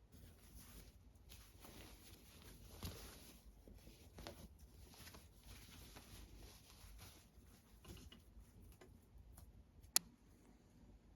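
Near silence in a small room, with scattered faint rustles and soft knocks and one sharp click about ten seconds in.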